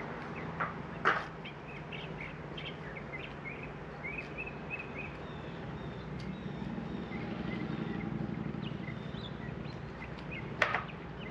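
Birds chirping over a steady low hum, with two sharp clicks, about a second in and near the end, from the mesh shade being hung onto the awning's magnets with a pole.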